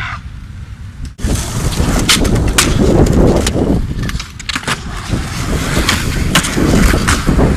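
Skateboard wheels rolling on concrete, with a steady rumble and repeated sharp clacks of the board popping and landing. It starts abruptly about a second in.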